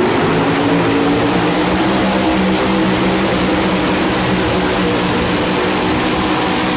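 Pulling truck's engine running hard under load during a pull, loud and steady with a sustained engine howl.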